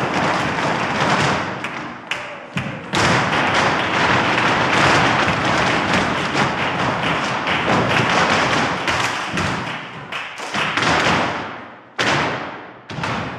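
Many dancers' flamenco shoes stamping and tapping together on a wooden studio floor during farruca footwork, a dense continuous clatter of heel and toe strikes. It dies away about twelve seconds in, followed by a few separate stamps.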